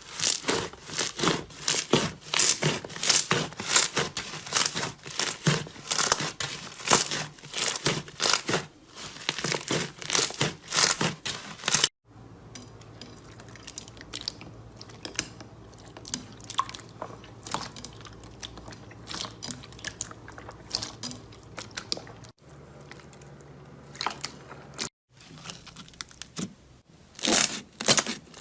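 Slime being squeezed and pressed by hand, making dense, crisp crackling and crunching for about the first twelve seconds. It then changes abruptly to much quieter handling with scattered clicks and pops, and loud crunching returns near the end.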